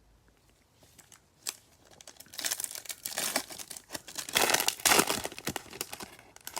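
Foil wrapper of a baseball card pack being torn open and crinkled. Starts about two seconds in, with the loudest crackling past the middle.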